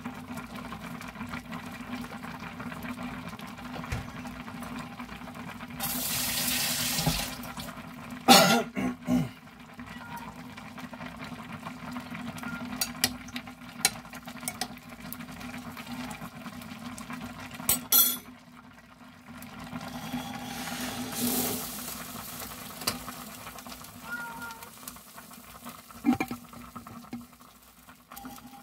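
Ramen broth bubbling in a glass saucepan, with a utensil stirring the noodles and clicking against the glass now and then. Two brief rushes of hiss come about six seconds in and again around twenty-one seconds, over a steady low hum.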